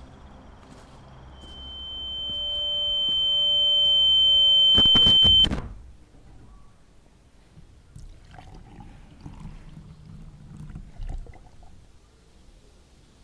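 A steady high-pitched electronic tone swells louder for a few seconds, then cuts off suddenly with a few clicks. After that come faint handling sounds and almond milk being poured from a carton onto cornflakes in a bowl.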